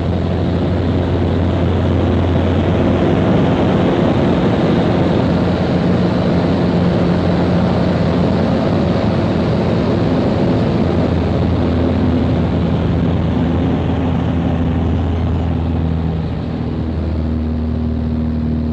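Microlight trike's engine and pusher propeller running steadily with heavy wind rush, the engine note shifting slightly in the last few seconds.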